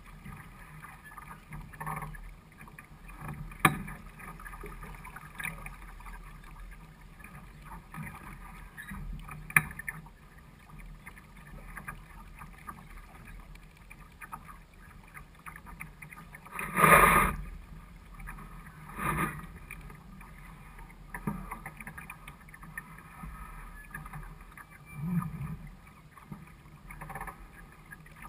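Water washing against the hull of a small sailboat under way, with wind on the microphone and a few sharp knocks; one louder burst of noise just past halfway.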